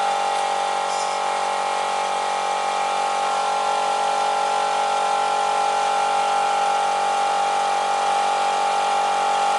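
Steady electric motor hum: one strong even tone with overtones, holding the same pitch and level throughout.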